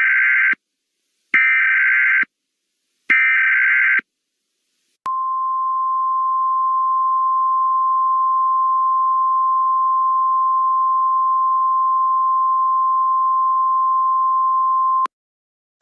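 Emergency Alert System SAME header: three short bursts of warbling digital data tones, about a second each, followed by the steady single-pitch 1050 Hz NOAA Weather Radio attention tone. The tone holds for about ten seconds and cuts off sharply, signalling that a weather warning message is about to be read.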